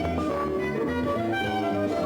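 Instrumental reggae music with no singing, played over a club sound system, with a strong bass line under melodic instruments.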